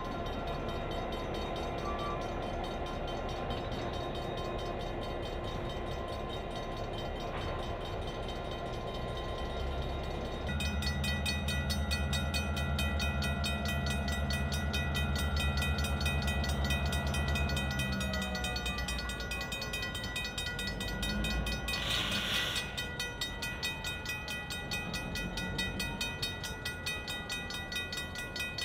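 EMD GP9 diesel locomotive, its 16-cylinder 567 two-stroke engine running as it moves a cut of tank cars. About a third of the way in the engine gets louder, with steady high ringing tones over it. A brief hiss comes about three quarters of the way through.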